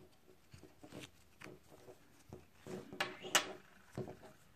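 A fabric watch strap being worked loose from its metal loop and pulled through the watch case: faint rustling of the fabric with scattered small clicks and scrapes, the sharpest few about three seconds in.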